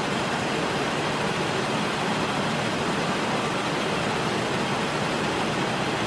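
Steady factory-floor machinery noise: an even wash of hiss with no rhythm, tone or break.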